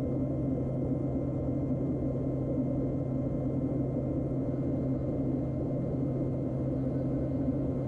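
Steady low drone of a KT-1B Wongbee turboprop trainer's engine and propeller in flight, a constant hum with no change in pitch, heard through the aircraft's radio audio.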